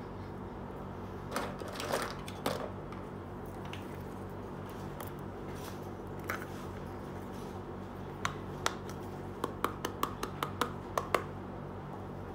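Small plastic toy cookware handled: a few soft knocks and rustles early on, then a quick run of about ten light plastic clicks and taps as a toy pot and its lid are fitted together and set down. A steady low hum lies underneath.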